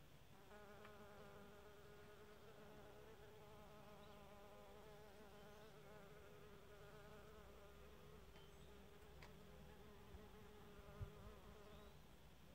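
A bee buzzing in flight close to the microphone: a faint, steady drone whose pitch wavers slightly, starting about half a second in and stopping near the end. A brief low bump sounds just before the buzz ends.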